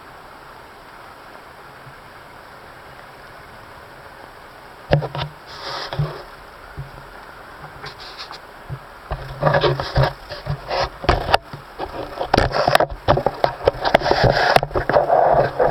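Handling noise from a camera on an extension pole: a steady hiss at first, then knocks from about five seconds in, and rubbing and scraping that grow busier and louder in the last few seconds.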